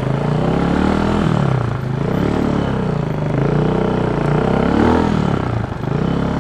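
Light dirt bike's engine revving up and down while being ridden, its pitch rising and falling several times and highest about five seconds in.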